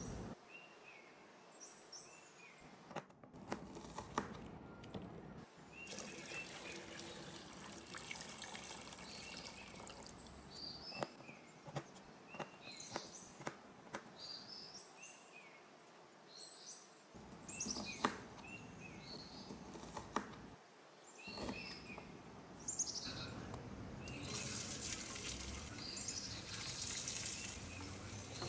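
Small birds chirping in short repeated calls, with scattered sharp knocks and clicks. About four-fifths of the way in, a steady hiss sets in.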